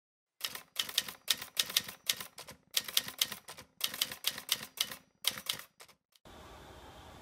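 Typewriter sound effect: keys striking in quick runs, about six runs with short pauses between, stopping about six seconds in. A faint steady room hiss follows.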